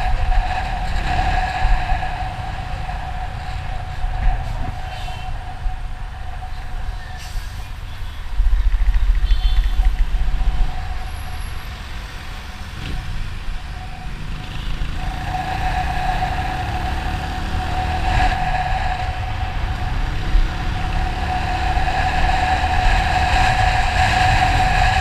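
Motorcycle running on the road: a steady engine drone over a low rumble, which swells for a couple of seconds about a third of the way in.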